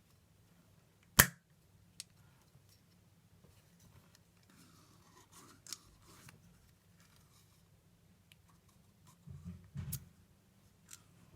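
A desoldering pump (solder sucker) being unpacked and handled: one sharp plastic snap about a second in, then a few quieter clicks and light rustling.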